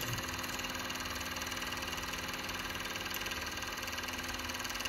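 JUKI MF-7523 three-needle coverstitch industrial sewing machine running steadily, stitching binding onto fabric with a fast, even mechanical rhythm.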